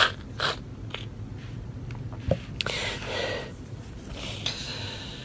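A man crying quietly without words: a sharp sniff at the start and a couple more short sniffs, then two long breaths out.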